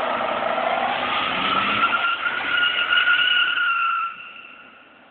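Pickup truck's rear tires squealing in a burnout, with the engine under it. The squeal rises slightly in pitch, then fades out about four seconds in.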